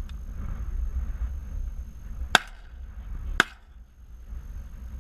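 Two shotgun shots about a second apart, fired from a duck blind at passing teal, over a steady low rumble.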